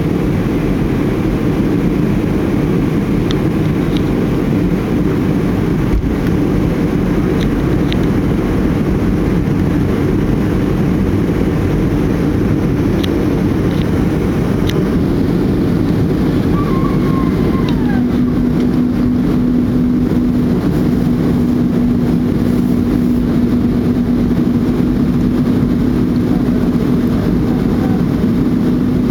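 Airliner cabin noise on a night approach: a steady, loud low rumble of engines and airflow. About two-thirds of the way in, a steady low hum joins it and holds.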